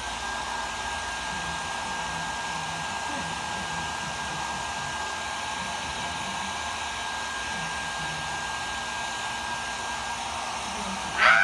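Handheld hair dryer running steadily, with a thin high whine over its blowing noise. A short loud cry near the end.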